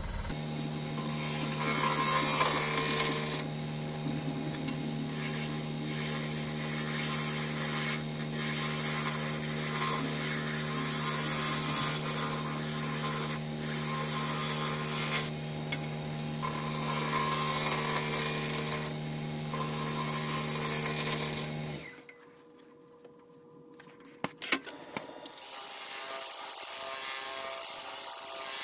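Laguna Revo wood lathe running with a carbide tool cutting ash, the cuts coming in repeated stretches with short breaks. The lathe hum cuts off suddenly about 22 seconds in, and after a short pause and a click, a DeWalt cordless drill with a sanding pad runs against the spinning ash bowl.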